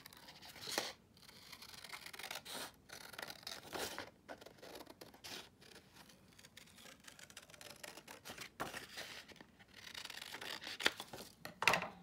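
Scissors snipping out a traced shape, a run of short, irregular cuts.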